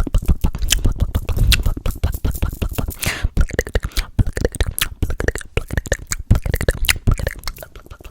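Close-miked ASMR mouth sounds: a rapid, irregular run of wet clicks and pops, with a short hiss about three seconds in.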